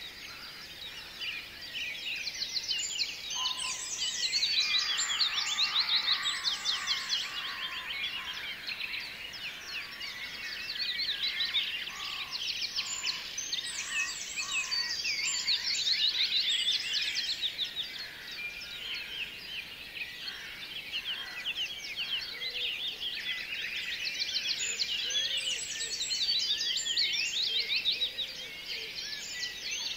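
A dense chorus of many small birds chirping and twittering, rapid high calls overlapping, swelling and easing every few seconds.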